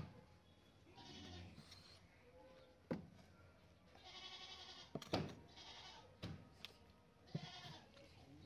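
Livestock bleating four times, each call a wavering bleat of about half a second to a second, with a few sharp knocks between them.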